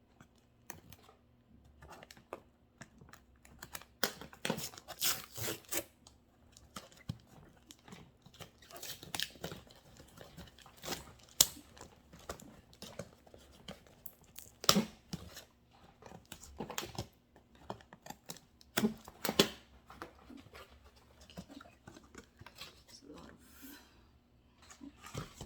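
Parcel packaging being opened by hand: irregular tearing, rustling and crinkling with sharp snaps, in bursts that come and go.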